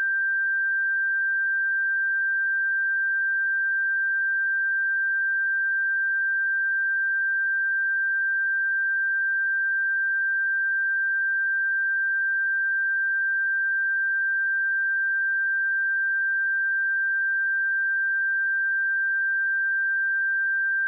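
A pure 1577 Hz sine-wave test tone, held steady at one pitch and level.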